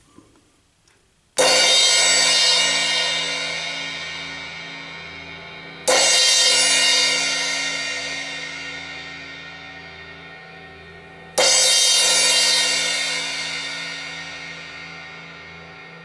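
Zildjian A Custom crash cymbal struck three times with a drumstick, a few seconds apart, each crash ringing out with a bright shimmer and fading slowly before the next hit.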